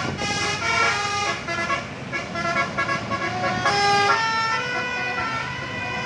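A bus's multi-tone telolet air horn playing a tune, note after note in quick steps, over the bus engine's running.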